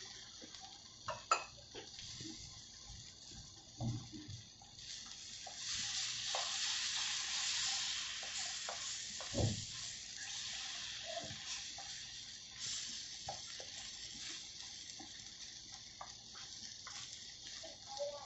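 Beaten eggs sizzling in hot oil on a flat iron tawa, with scattered light clicks and scrapes of a spatula. The sizzle swells about five seconds in and eases back after about twelve seconds.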